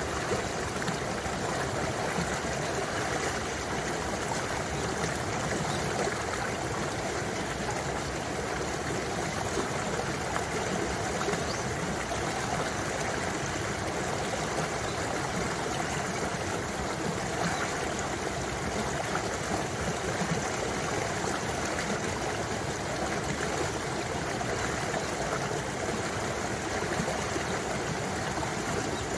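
Mountain valley stream running steadily: an even, unbroken rush and trickle of flowing water.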